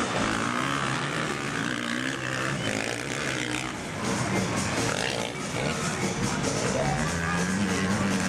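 Background music with a melody in held notes that step from one pitch to the next.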